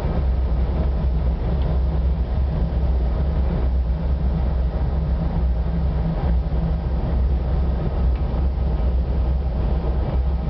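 A locomotive's engine running steadily, heard from inside its driver's cab, a low drone under the rumble of the wheels on the track as it rolls along.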